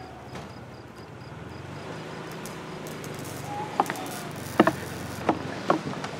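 Heeled shoes stepping on wooden boardwalk planks: about four sharp knocks, a step roughly every two-thirds of a second, starting a little past halfway. Before them, a faint steady background as a music cue dies away in the first second.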